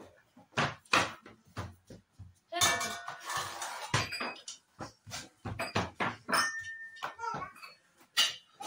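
Kitchen utensils clinking and knocking during dough work: a string of sharp knocks and clinks, with a denser clatter lasting over a second about two and a half seconds in.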